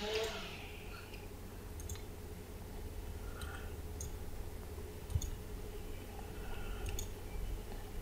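Faint clicks of a computer mouse, a few of them spread a second or two apart, over a low steady hum.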